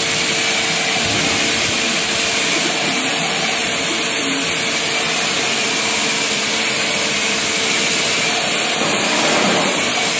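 Pressure washer running without a break, its pump motor giving a steady hum under the loud hiss of the water jet hitting plastic trays.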